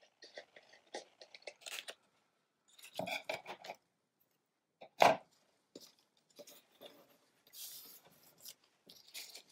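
Scissors snipping through paper and cut paper strips being handled and rustled on a tabletop, with one sharp knock about five seconds in.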